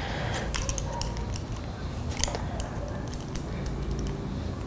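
Folded steel armature wire being straightened by hand, giving scattered light metallic clicks and ticks as it is bent and handled.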